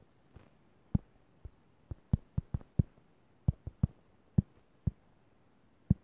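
Fingertip taps on a phone's touchscreen, picked up by the phone's own microphone. About a dozen short, dull taps come at an irregular typing pace as a word is typed on the on-screen keyboard.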